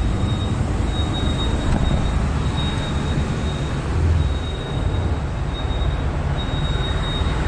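High-pitched brake squeal from the Mercedes-Benz Actros MP5 rig, coming and going in short stretches every second and a half or two over the low rumble of the truck rolling slowly. The driver takes it for a brake pad lightly rubbing the disc at low speed.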